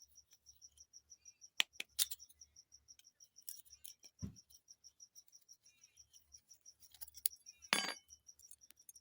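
Small metal parts of a sewing machine clicking and clinking as a part is unscrewed and taken apart for cleaning, with a few sharp clicks spread through. A faint high ticking repeats about six times a second in the background.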